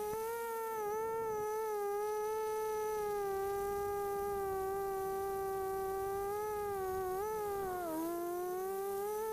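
Brushless motors and propellers of a 250-size FPV quadcopter in flight, heard from its onboard camera: a steady whine whose pitch wavers with throttle and dips briefly near the end.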